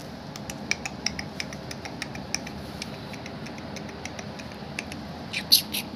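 Lhasa Apso puppy's claws ticking irregularly on a hard concrete floor over a steady background hum, with a few louder scuffling sounds near the end.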